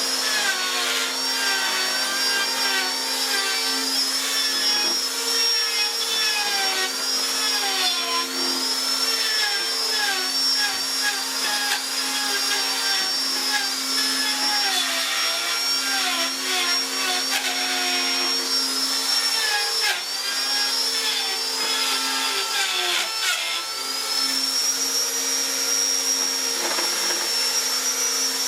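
An electric power tool running continuously over a steady hum. Its high motor whine dips in pitch again and again and comes back up, as it is pressed into the work and eased off.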